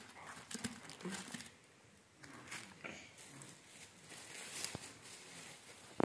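Plastic bag and paper food wrapping crinkling and rustling on and off as hands handle it, faint and irregular.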